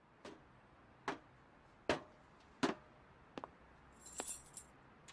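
Footsteps of hard-soled shoes, five even steps about 0.8 s apart, then a brief jingle of keys near the end: a drama-CD sound effect of someone walking up to a door and getting out keys.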